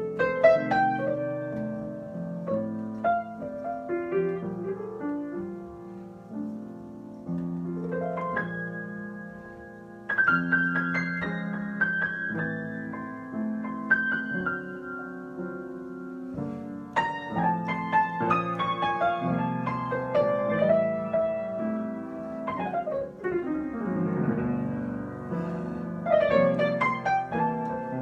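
Solo piano being improvised: chords and melody notes struck and left to ring, with a quick descending run about three-quarters of the way through.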